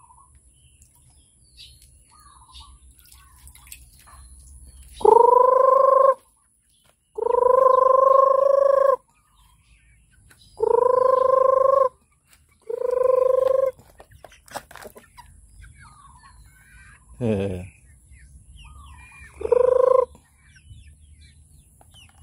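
A person calling chickens to feed with long, drawn-out calls held on one steady pitch, five of them, each one to two seconds, with a short call dropping sharply in pitch between the last two.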